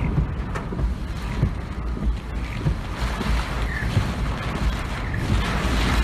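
Typhoon wind gusting and buffeting the microphone with a heavy low rumble, and a rushing hiss that swells as a stronger gust builds near the end.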